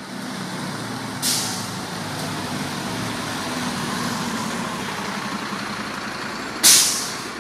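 Fire engine's diesel engine running as it moves past, with two sharp air-brake hisses, one about a second in and a louder one near the end.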